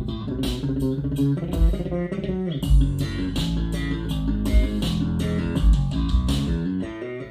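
Recorded music playing through hi-fi speakers with a REL subwoofer: plucked guitar and bass guitar over a beat, with heavy deep bass.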